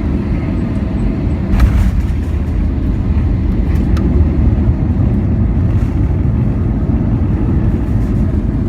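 Cabin noise of an Airbus A320 during landing: a loud, steady low rumble, with a sharp thump about a second and a half in and a smaller click near four seconds.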